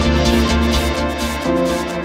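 Electronic background music: held chords without a drum beat, shifting to a new chord about one and a half seconds in.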